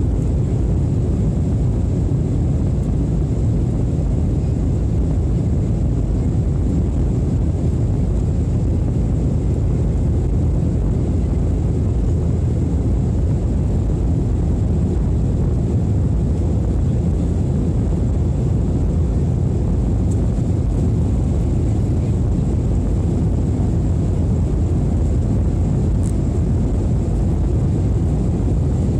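Steady in-flight cabin noise of an airliner heard from a passenger seat: a loud, even, low rush of engines and airflow, with a faint high whine above it.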